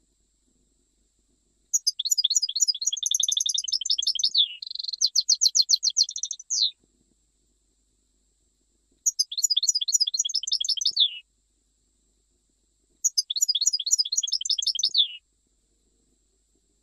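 European goldfinch singing in the Algerian Jijel (Jijli) style: three phrases of rapid, high twittering trills, each ending on a falling note, separated by pauses of about two seconds. The first phrase is the longest.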